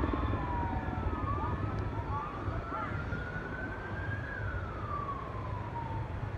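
Several emergency-vehicle sirens wailing at once, their pitches rising and falling slowly and crossing each other, over a steady low rumble.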